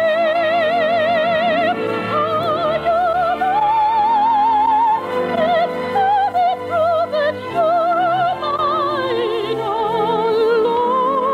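Operatic soprano singing long held notes with a wide vibrato over a light orchestral accompaniment, the melody climbing and falling in a romantic operetta duet.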